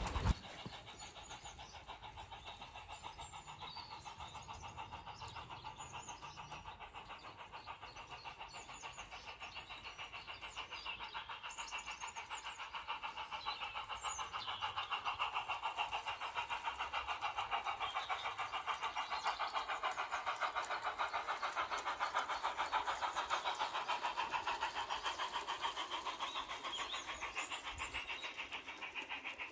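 O gauge garden-railway model train running along the track: a steady, rapid clicking run of wheels on rail that grows louder as the train comes past and fades near the end. Faint bird chirps above it.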